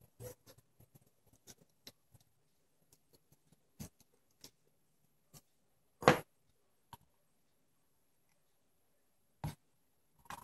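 Scattered light taps and clicks of a tiny seasoning shaker and miniature chicken drumsticks being handled on a plastic cutting board, with one much louder knock about six seconds in.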